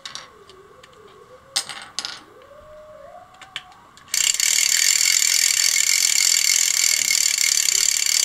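A hand-cranked 3D-printed plastic wind-up fan. A few sharp plastic clicks sound as the new handle is fitted. Then, about four seconds in, its gear train starts a loud, steady whirr as the handle is cranked fast, and this stops abruptly near the end.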